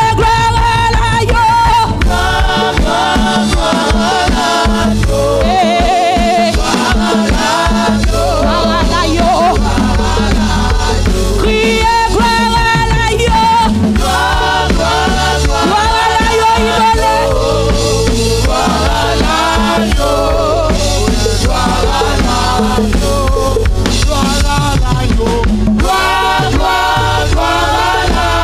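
Live gospel worship singing: several singers on microphones leading a song over a steady instrumental accompaniment with a sustained bass.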